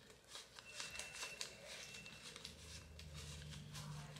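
Paper banknotes being flicked through one by one as they are counted by hand: a run of quick, crisp paper flicks.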